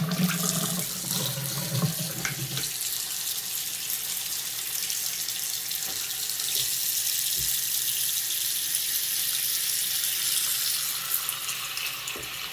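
Water running steadily from a newly installed Moen Graeden two-handle bathroom faucet into the sink, the hot side turned on to test the new faucet after the supply is reopened. A low hum sounds under the water for the first couple of seconds.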